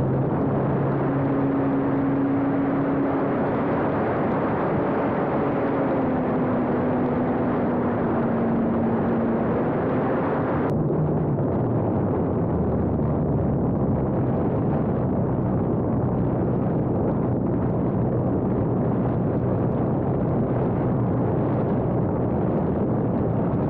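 RC model Cessna 150's motor and spinning propeller heard from an onboard camera, running steadily under heavy wind rush through a takeoff run, flight and landing. The tones drift slightly in pitch, and the sound changes abruptly about 11 seconds in.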